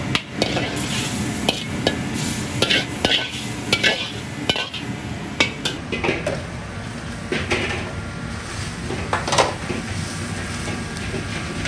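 Metal ladle and utensils clinking and scraping against a wok and plate as curry sauce is served, many quick clinks at first, then fewer, with a louder clink about nine seconds in. Steady low rumble of a busy kitchen runs underneath.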